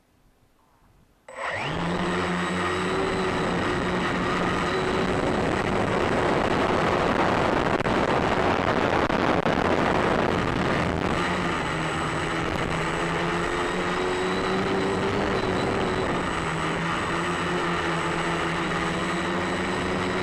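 Electric motors and propellers of an FPV drone starting up suddenly about a second in, then running steadily as it lifts off and climbs: a loud, continuous whine over a dense whir.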